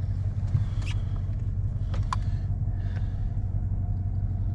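Steady low drone of a Chevrolet Silverado pickup driving, heard from inside the cab, with a couple of faint clicks about one and two seconds in.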